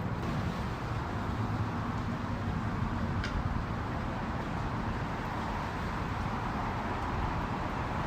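Steady low rumble of idling boat engines mixed with outdoor background noise, with one faint click about three seconds in.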